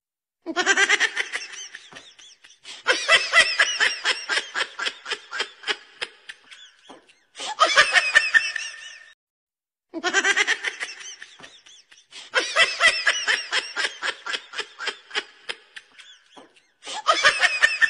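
A person laughing hard in quick, even bursts, broken by short pauses. The same stretch of laughter plays twice, the second time starting about nine and a half seconds after the first.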